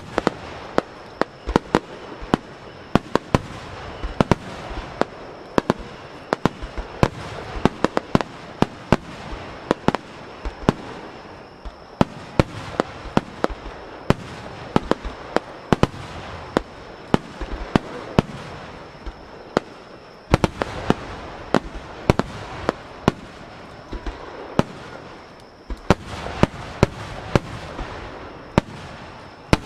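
Starmine fireworks barrage: shells bursting overhead in quick, irregular succession, several sharp bangs a second over a continuous crackle, with two brief lulls before the bursts pick up again.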